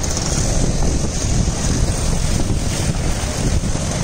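Wind buffeting the microphone: a steady, rough low rumble with a hiss over it and no let-up.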